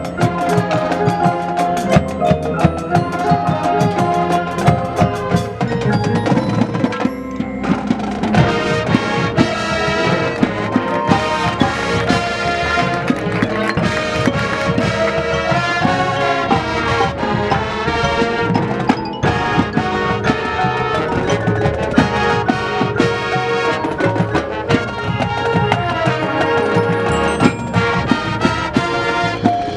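High school marching band playing, with drums and percussion hits prominent under the pitched ensemble, and brief breaks about seven and nineteen seconds in.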